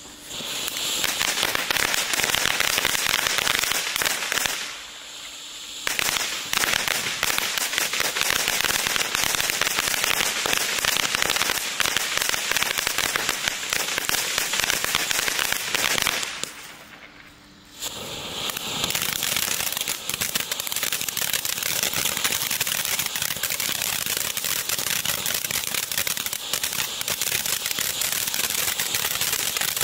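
DXF047 Bear Fountain, a ground firework fountain, spraying sparks: a continuous hissing with dense crackling. It drops away briefly twice, about five and seventeen seconds in, between its effects.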